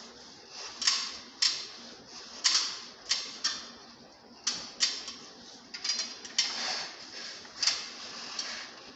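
Cloth wiping down the casing of a split air conditioner's indoor unit: a string of short, irregular rubbing strokes, about a dozen in all.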